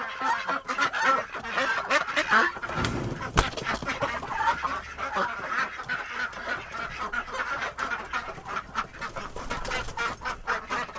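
Domestic ducks and chickens calling over each other, a steady din of quacking and clucking from a crowded coop, with one sharp knock about three seconds in.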